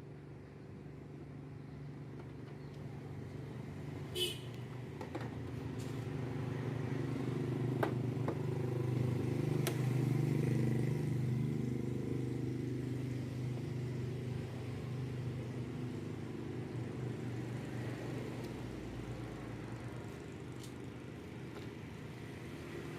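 A motor vehicle engine running at a steady low pitch, growing louder over about ten seconds and then slowly fading, with a few faint clicks.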